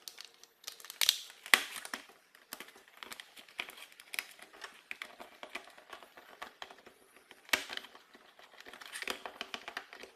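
Plastic casing of an extension board being pressed shut by hand, then a small screwdriver driving screws into its back: a string of sharp clicks and scrapes. The loudest come about a second and a half in and at about seven and a half seconds.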